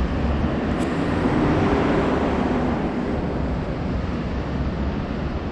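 Steady outdoor vehicle and traffic noise along a drop-off road, with wind rumbling on the GoPro's microphone.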